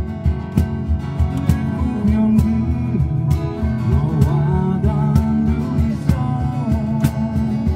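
Live acoustic band playing: two acoustic guitars and a keyboard over a steady cajón beat.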